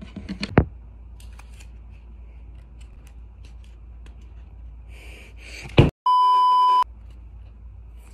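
A steady electronic censor bleep lasting under a second, set into a cut of dead silence and covering an angry outburst. Just before it comes a sharp knock, and another sharp knock sounds about half a second in, with faint handling and rustling between.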